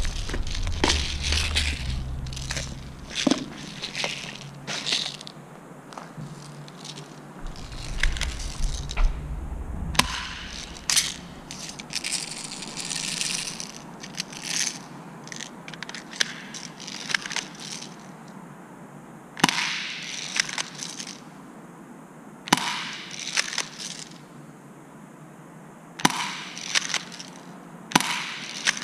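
Footsteps crunching over rubble and debris, then an FN FNS-9 airsoft pistol firing single shots a few seconds apart, each a sharp crack.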